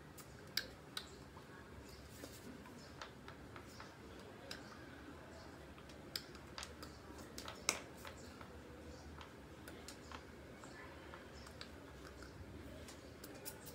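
Scattered faint clicks and taps at uneven intervals over quiet background hiss, the sharpest about two-thirds of the way through.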